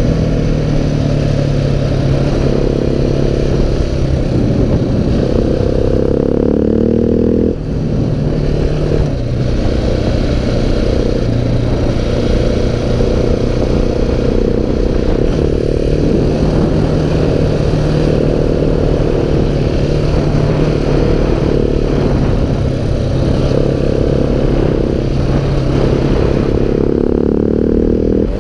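KTM 690 SMC R's single-cylinder engine running under way, heard from the bike: the engine note climbs steadily for a few seconds, drops sharply about seven seconds in, then climbs again and runs on with small rises and falls in pitch.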